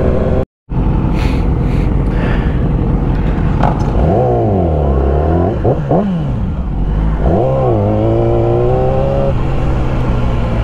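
Sport motorcycle engine running under way with wind rush: the revs sag, blip up and down twice, then climb and hold steady, as the bike slows and picks up through the gears. A brief cut to silence just under a second in.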